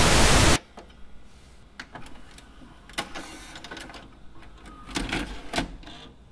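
A loud burst of TV static lasting about half a second, as in a VHS tracking glitch, followed by quieter irregular mechanical clicking and clattering.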